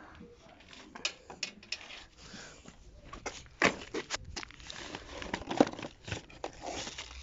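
Irregular rustling with scattered light clicks and knocks, the loudest a little past halfway, as things are handled and moved about.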